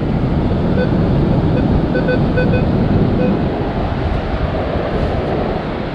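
Steady wind and surf noise on the microphone, with several short beeps from a Minelab Equinox 800 metal detector between about one and three seconds in, signalling metal in the scoop of sand.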